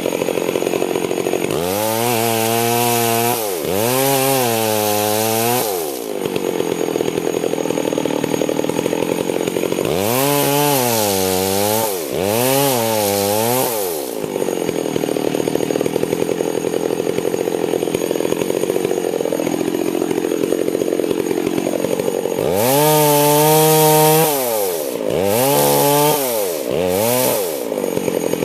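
Two-stroke chainsaw throttled up in repeated bursts, about seven in three groups, its engine pitch rising and falling with each, and running lower in between.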